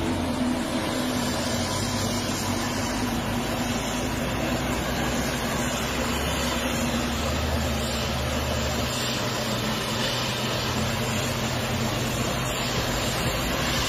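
Self-propelled forage harvester running steadily under load as it chops a tall standing crop and blows it into a truck alongside. The sound is a constant machine drone under a dense rushing noise, with no breaks.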